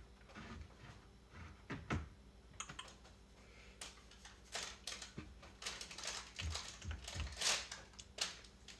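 Typing on a computer keyboard: irregular key clicks, coming faster and closer together in the second half.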